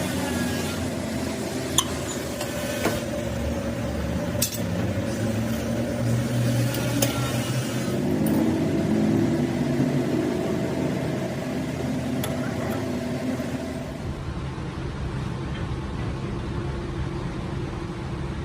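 A machine running steadily with a low, even hum, broken by a few sharp metallic clicks or knocks.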